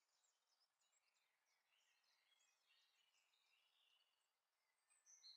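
Near silence: faint background hiss with scattered faint high chirps, a little louder just before the sound cuts off.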